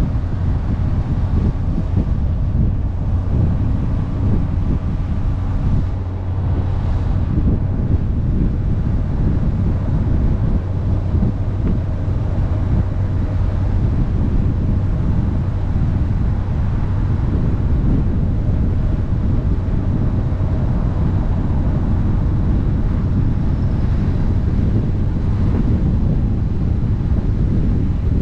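Honda CBR650F's inline-four engine running steadily while riding, with heavy wind buffeting on the microphone.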